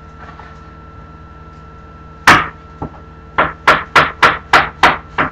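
A knife chopping on a cutting board: one heavy chop a little over two seconds in, then a run of sharp, even chops about three a second. A steady hum runs underneath.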